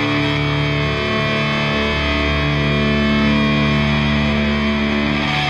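A rock song with distorted electric guitars, playing steadily.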